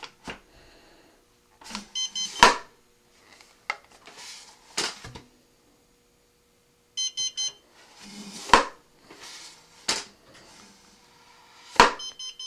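An armed Missile Works RRC2+ rocket altimeter sounds short groups of high electronic beeps about every five seconds. Its status beeping goes on unchanged: removing the nose and avionics bay does not set off a false deployment. Between the beeps come scraping and sharp knocks as the coupler slides out of the rocket body tube and is pushed back in.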